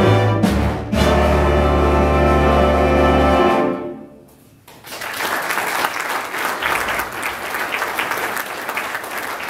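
A school band of saxophones, trumpets, upright bass and piano holds its final chord, which ends about three and a half seconds in. After a short pause the audience applauds.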